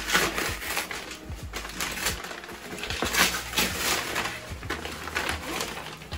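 Brown kraft paper wrapping being pulled open and off a parcel by hand, crinkling and rustling irregularly.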